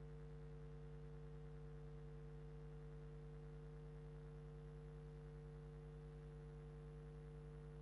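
Faint, steady electrical hum made of several unchanging tones, with no other sound.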